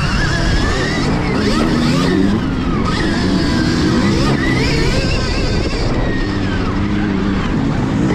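Stark Varg electric motocross bike's motor whining, its pitch rising and falling with the throttle, under heavy wind noise on the rider's helmet-camera microphone.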